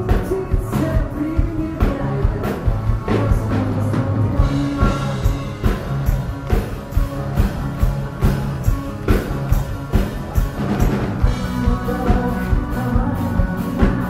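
Live rock band playing a song: drum kit keeping a steady beat under guitars and bass, with a woman singing the lead vocal.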